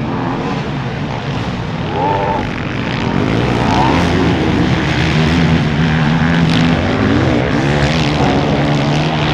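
Several off-road racing engines at a motocross race revving hard, their pitches rising and falling as riders open and close the throttle, over a steadier lower engine note.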